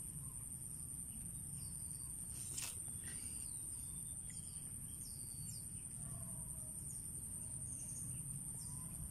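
Insects droning steadily at a high pitch, with scattered short bird chirps and one faint click about two and a half seconds in.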